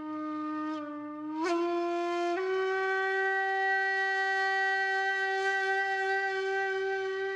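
Intro music: a single wind instrument plays a short rising phrase of notes, then holds one long steady note.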